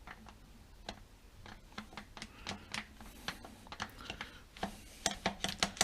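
Light, irregular metallic clicks and taps of an engine timing locking tool being slid in and out of its slot, the free movement it should have when the timing is set right. The clicks come more often near the end.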